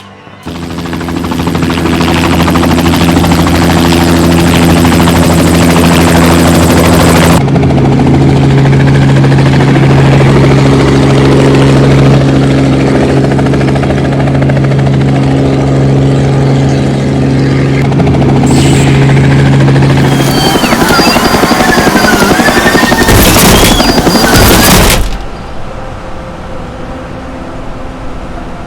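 Helicopter rotor and engine running with a steady droning hum, which shifts to a lower, stronger drone about 7 seconds in. About 21 seconds in the drone gives way to a loud crash: noisy clattering with rising and falling squeals and heavy hits, then it drops to a quieter rumble.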